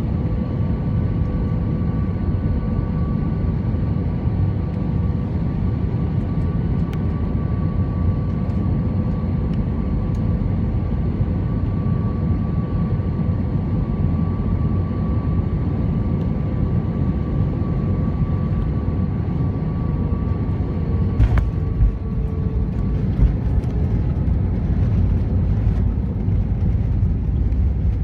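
Cabin noise aboard an Airbus A320-214 during its landing: a steady deep rumble of engines and airflow with a thin steady whine from the CFM56 engines. About 21 s in there is a single knock, and the whine then slides down in pitch and fades.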